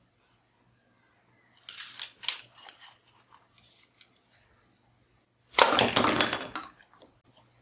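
Plastic clicks as a dart is pushed into a spring-loaded plastic toy pistol, then a few seconds later the pistol firing and paper cups and small plastic bowling pins clattering over for about a second.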